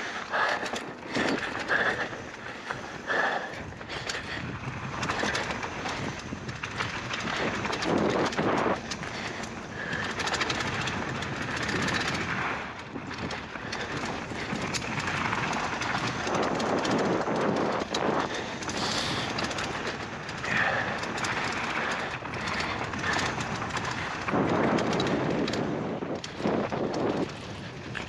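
Polygon Siskiu N9 mountain bike rolling fast down a dirt trail: a steady rush of tyres on dirt and air noise that swells and dips, with frequent rattles and knocks from the bike.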